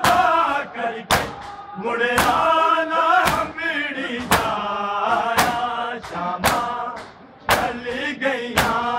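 Male voices chanting a Punjabi noha, with unison matam throughout: open-hand slaps on bare chests landing about once a second in a steady beat.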